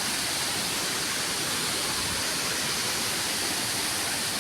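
Waterfall water falling, an even, unbroken hiss with no change in level.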